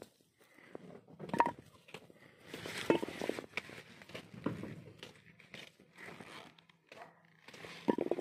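Hands picking through dry soil and potato vines, with irregular rustles and crunches and a few sharper knocks, some with a short metallic ring, as small potatoes are dropped into a steel bowl.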